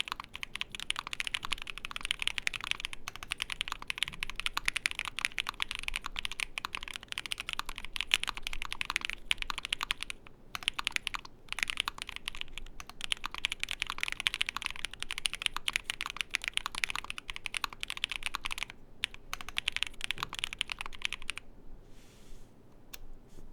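Fast, continuous typing on an ai03 Vega custom mechanical keyboard with a polycarbonate plate, full foam and lubed Moyu Black switches: a dense stream of key clacks. It breaks off briefly about ten seconds in and again near nineteen seconds, and thins to a few scattered keystrokes near the end.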